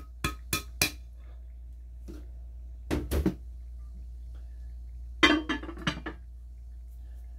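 Hand knocking on the bottom of an upturned plastic tub to shake out its contents, about four sharp taps in the first second. Then hard plastic containers and a lid clattering as they are handled, a pair of knocks about three seconds in and a quick run of knocks a little after five seconds.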